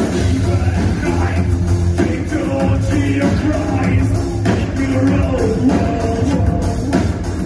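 Live band music played loud through a venue's sound system: a drum kit keeping a steady beat under a singing voice.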